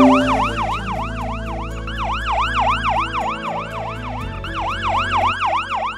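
Electronic alarm siren yelping in fast rising-and-falling sweeps, about four a second, sounding an access-denied alert. A low sustained music chord plays underneath.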